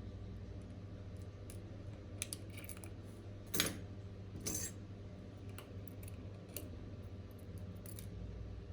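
Small metal repair tools clicking and tapping now and then during work on an AirPods Pro charging case, over a steady low hum. The loudest tap comes about three and a half seconds in.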